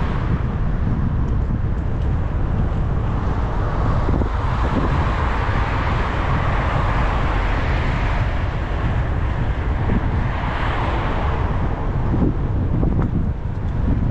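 Wind buffeting the microphone of a camera on a moving bicycle, with the tyre noise of passing cars rising and fading twice.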